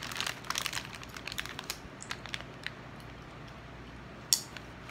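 Zip-lock plastic bag of dried sea moss crinkling as it is handled, with a run of crackles over the first couple of seconds that then thin out. A single sharp click comes near the end.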